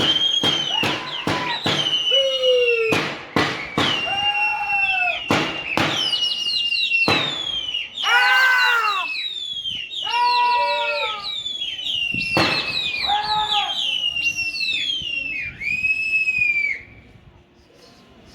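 Loud, repeated shrill whistling, a high held note that keeps dropping away, with lower arched whistled notes among it and many sharp cracks like claps or bangs throughout. It all stops suddenly near the end.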